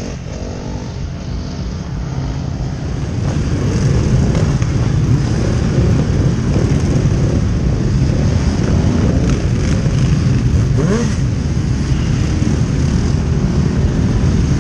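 Engines of a large pack of motorcycles running together at low speed, the sound swelling over the first few seconds and then holding steady. One engine gives a short rising rev about three-quarters of the way through.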